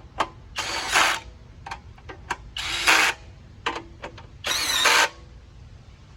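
A power drill-driver runs in three short bursts of about half a second each, tightening the three M6 flange bolts that mount a kickstarter to the engine shroud. Short clicks fall between the bursts, and the motor's pitch rises during the last burst.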